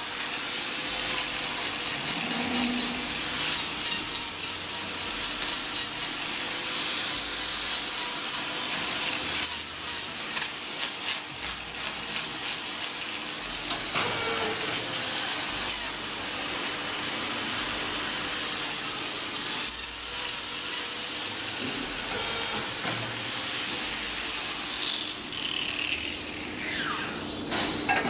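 Handheld angle grinder with a hoof-trimming disc grinding down a cow's hoof horn: a steady rasping hiss that wavers and pulses in level through the middle, with a few short falling squeals near the end.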